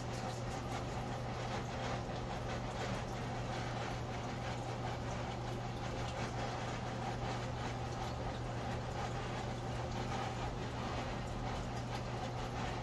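Air conditioner running with a steady low hum, with faint scattered clicks over it.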